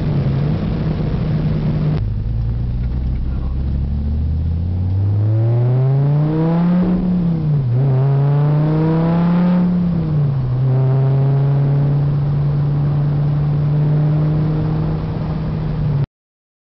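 Dodge Viper SRT-10's 8.4-litre V10 through a Belanger ceramic exhaust, heard from inside the cabin: a low steady rumble, then a hard acceleration with the note climbing, one upshift dip and a second climb. The car lifts off about ten seconds in and the V10 settles to a steady cruise, then the sound cuts off suddenly near the end.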